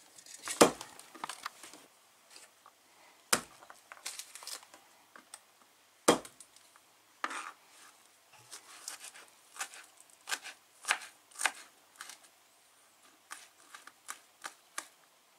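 Garlic being broken apart, peeled and cut on a plastic cutting board: dry skins crinkling and tearing, three sharp knocks in the first half, then a run of light knife taps on the board.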